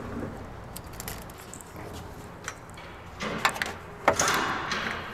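Metal parts clinking and knocking as technicians handle and fit a turbo assembly under a lifted car, over a steady low shop hum. There is a small cluster of clicks about three and a half seconds in and a sharper knock about four seconds in.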